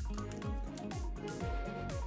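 Background music with a steady low beat, about two beats a second.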